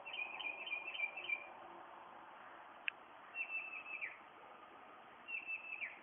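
A bird singing: a run of quick, high chirps, then two short stuttering trills about two seconds apart, each ending in a downward slur. A single sharp click comes about three seconds in.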